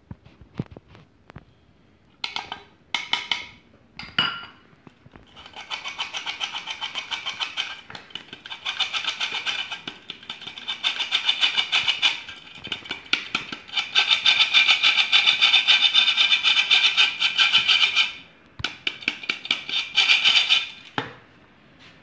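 Stainless-steel hand-held flour sifter being worked over a plastic bowl, its mechanism scraping cocoa powder through the mesh with fast, rhythmic rasping clicks. A few short runs come first, then a long, almost unbroken stretch with brief pauses.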